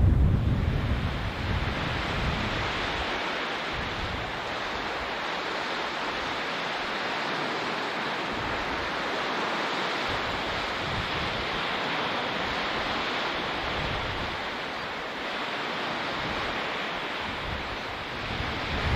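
Steady wash of waves breaking on the shore. Wind buffets the microphone for the first couple of seconds, then mostly dies down.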